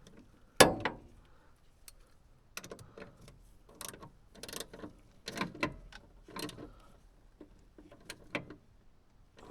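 Metal hand tools clinking and clattering. One sharp clank comes about half a second in, then a run of lighter clinks and rattles.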